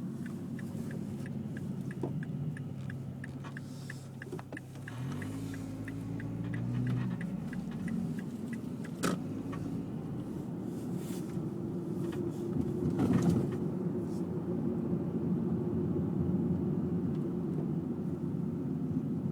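Mazda 3 driving over bumps, heard from inside the car: steady road and engine rumble with a few sharp knocks as it hits the bumps, over which it makes a squeaking noise. A fast, regular ticking runs through the first half.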